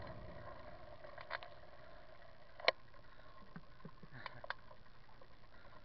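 Bicycle rolling quietly along a paved trail: a faint steady hiss with a few sharp clicks and ticks, the loudest about halfway through.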